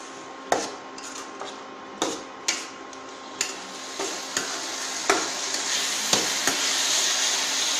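Spiced gravy sizzling in a metal kadai while fried koftas are stirred in, with a utensil knocking against the pan about nine times at uneven intervals. The sizzle grows louder in the second half.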